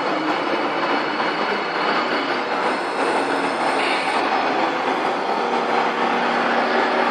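1:14 scale RC model trucks running: a steady mechanical whir of small electric motors and gearboxes, with layered faint steady tones.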